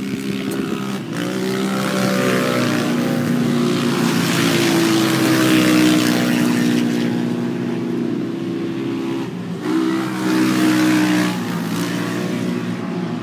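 Several racing UTV engines running hard, their pitch shifting and rising as they accelerate, loudest around the middle.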